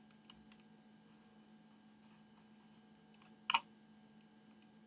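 A steady low hum with a few faint clicks near the start and one sharper click about three and a half seconds in.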